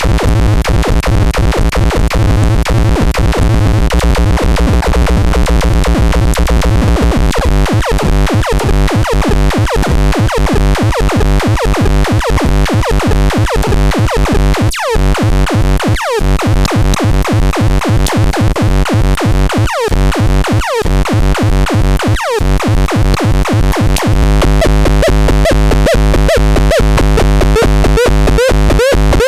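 Electronic synthesizer playing a dense, buzzing low drone. From about eight seconds in it pulses about twice a second, with a few sharp falling zaps. Near the end it changes to a steadier layered tone.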